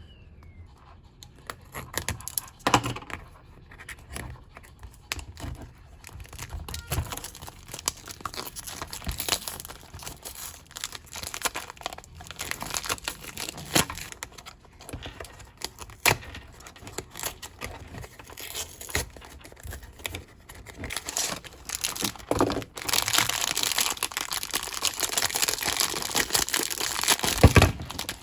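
Packaging crinkling and tearing as it is handled and opened, in irregular bursts, becoming a dense, continuous rustle near the end.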